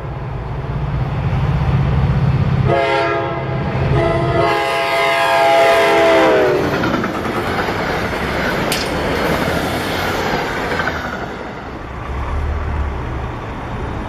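A train passing through a station: a locomotive's low engine rumble, then its horn sounding for a few seconds, dropping in pitch as it goes by. The rushing clatter of the cars rolling past follows.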